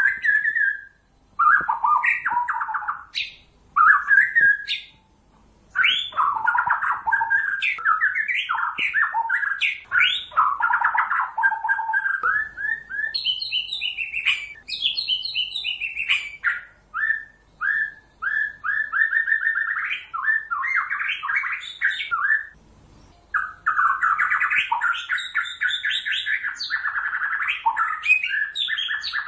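White-rumped shama singing in full song, long varied phrases of rapid whistled notes and trills, broken by a few short pauses.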